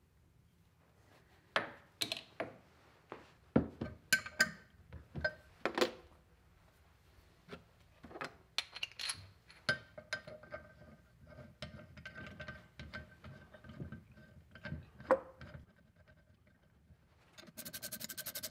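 Scattered metal clinks and knocks as a steel wheel, an aluminium block and a wrench are handled and fitted together on a workbench, with short quiet gaps between.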